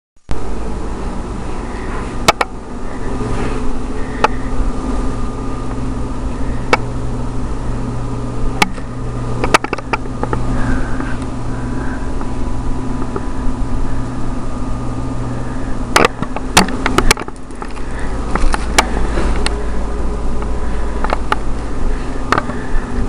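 Steady low mechanical hum, like a motor or fan running, with a faint steady high whine over it and scattered sharp clicks and knocks, a cluster of them about two-thirds of the way through.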